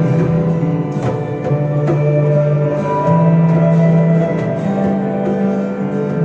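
Live band music in an instrumental passage: sustained chords over a bass line whose notes are held for about a second each before moving to the next.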